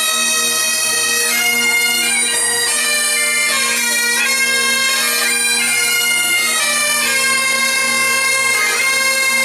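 A group of Great Highland bagpipes playing a tune together, the melody changing note over steady drones.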